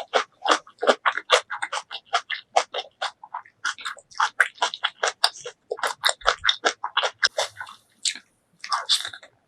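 Close-miked eating sounds: quick, crisp, wet crunching and chewing, several bites a second, as a mouthful of kimchi and spicy ramen noodles is chewed.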